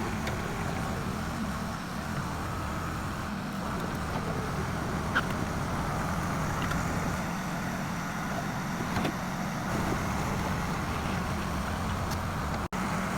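Excavator's diesel engine running steadily, with a few light ticks over it.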